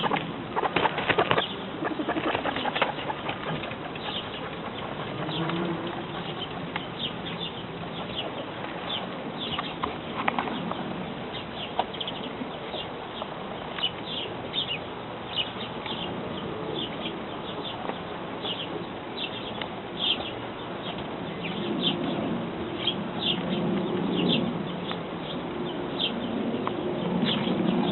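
Guinea pigs chewing food: a long run of quick, crisp crunching clicks, a few louder knocks about a second in. A low pitched sound joins in for the last few seconds.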